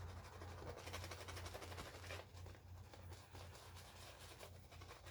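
High-density V69-knot shaving brush working lather on a face: faint, quick scratchy strokes of the bristles over a steady low hum. The lather is on the dry side, short of water.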